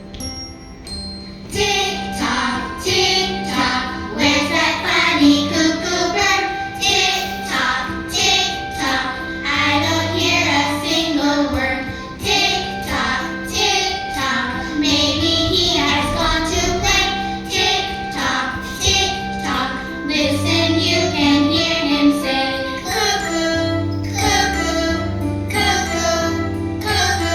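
A group of young children singing together over a music accompaniment, starting about a second and a half in after a quieter chiming opening.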